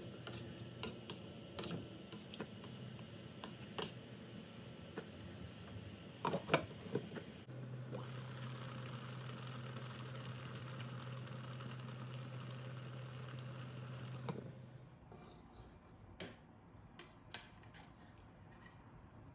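A wooden spatula stirs a nonstick pot of simmering radish and dried-fish curry, knocking against the pot, with two louder knocks about six seconds in. After that comes a steady hiss with a low hum from the pot bubbling on the gas burner for several seconds. Near the end a metal ladle clicks in the pot.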